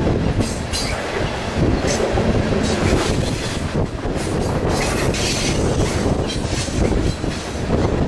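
Loaded coal cars of a BNSF freight train rolling past, steel wheels rumbling and clicking on the rails in a steady, continuous run, with strong wind buffeting the microphone.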